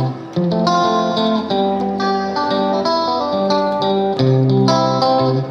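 Background music: a plucked guitar playing a gentle melody of clear single notes over steady lower notes.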